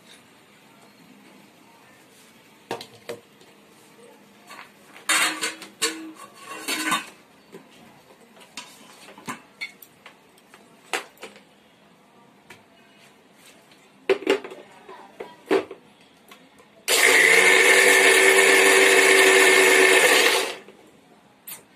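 Knocks and clatter of kitchen utensils, then an electric mixer grinder runs in one short burst of about three and a half seconds, grinding coconut chutney with water, and stops.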